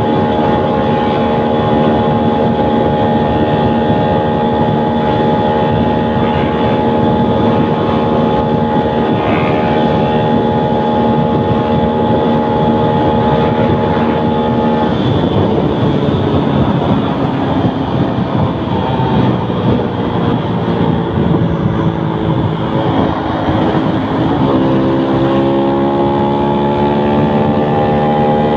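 Tuned small motorcycle engine, fitted with a 56 mm piston, a racing ECU and 14/32 sprockets, running at high, steady revs with wind noise. About halfway through the revs drop and waver, dip once more, then climb back and hold steady near the end.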